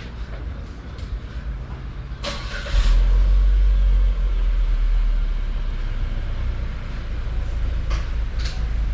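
Chevy Trax engine starting: a brief crank a little over two seconds in, catching at about three seconds with a loud jump, then running at a steady idle. Two light clicks near the end.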